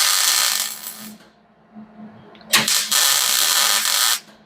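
MIG welder arc crackling in two short bursts as spot welds fill a crack in a steel door hinge mount. The first burst stops about a second in; the second starts about halfway through and lasts about a second and a half.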